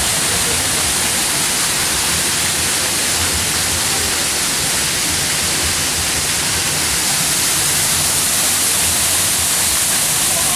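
Waterfall pouring over rockwork: a loud, steady rushing hiss.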